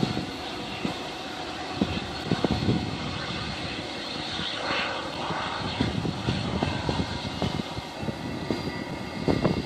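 Jet airliner engines running at a distance: a steady rush with a thin whine in it, swelling briefly about halfway. Wind buffets the microphone with low thumps throughout.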